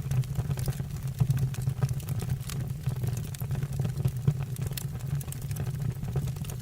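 Wood fire in a fireplace crackling: irregular sharp pops and snaps scattered over a steady low rumble of the flames.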